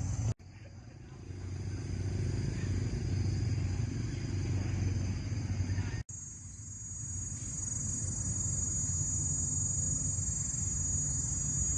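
Steady outdoor ambience: a continuous high-pitched insect drone over a low rumble, broken by two abrupt cuts, about half a second in and six seconds in.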